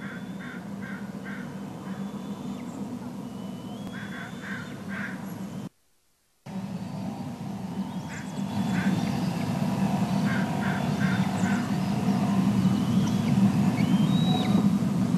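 Bird calls in quick runs of four or five short notes, repeated every few seconds, over a steady low rumble. The sound cuts out for about half a second near the middle, and the rumble grows louder after that.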